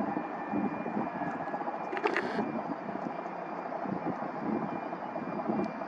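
Aircraft engine noise, a steady rushing, with a brief crackle about two seconds in.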